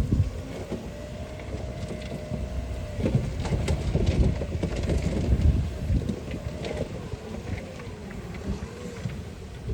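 Heavy diesel earthmoving machinery working: a low engine rumble with a wavering whine that rises and falls, and irregular knocks and clanks, with wind buffeting the microphone.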